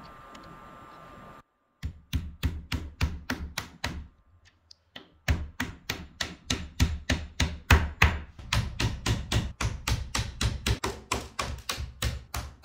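Rapid, evenly spaced sharp knocks, about four or five a second, with a short pause about four seconds in.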